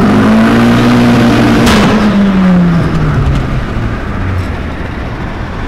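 Turbocharged VW 1.8T four-cylinder with a GT30 turbo under full-throttle acceleration, heard from inside the cabin. The engine note dips briefly at a gear change right at the start, climbs again, then after about two seconds the revs fall away as the throttle is lifted, with a short sharp burst of noise just before, and the engine goes quieter.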